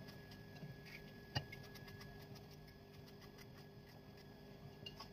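Faint knife cuts through pumpkin held in the hand, a scatter of small clicks with one sharper click about a second and a half in, over a low steady hum.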